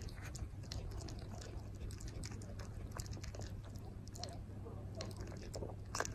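French bulldog gnawing on a chew bone: faint, irregular small clicks of teeth working the chew.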